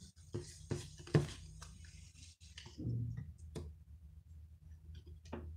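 Trading cards being handled and sorted: cards and plastic card sleeves rustling for the first couple of seconds, with a handful of sharp taps as cards are set down.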